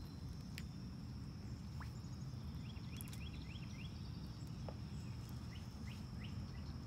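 Outdoor ambience: a steady high-pitched insect drone over a low rumble, with two brief runs of quick, rising chirps.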